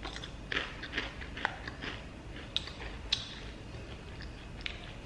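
Thick, ridged Chitato potato chip being chewed with the mouth close to the microphone: a run of irregular crisp crunches, with a couple of sharper cracks about two and a half and three seconds in.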